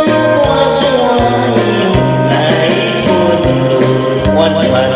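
A man singing into a handheld microphone over a karaoke backing track with bass and a steady drum beat.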